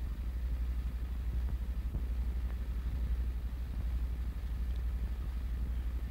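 Steady low hum and rumble with faint hiss from an old film soundtrack, fluttering rapidly, with no other sound.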